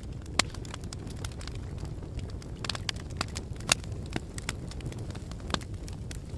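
Wood fire crackling, with irregular sharp pops that are loudest about half a second in and near four seconds, over a steady low rumble of blowing wind.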